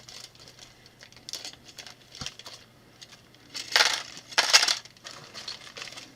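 Small plastic building bricks clattering and rustling as they are tipped out and sorted by hand, with two louder bursts of clatter in the middle.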